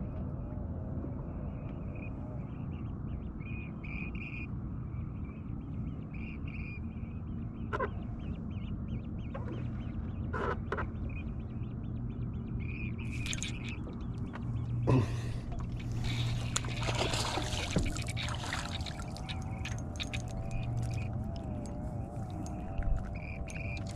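Distant waterfowl calling again and again, short calls every second or so through the first half, over a steady low hum. About fifteen seconds in comes a knock, then a few seconds of clatter and rustling as a crappie is reeled in and lifted from the water.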